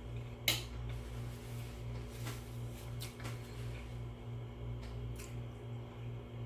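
An eating utensil clinking against a dish: one sharp clink about half a second in, then a few fainter taps. A steady, evenly pulsing low hum runs underneath.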